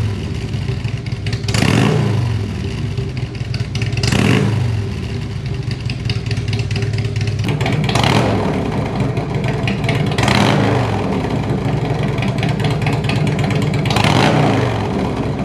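Harley-Davidson Twin Cam V-twin motorcycle engine through a loud aftermarket exhaust, idling and blipped five times, each rev falling straight back to idle.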